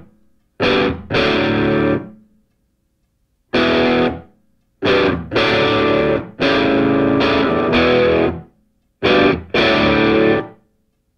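Music with a distorted electric guitar playing chords in short, hard-stopped blocks, with brief silences between them.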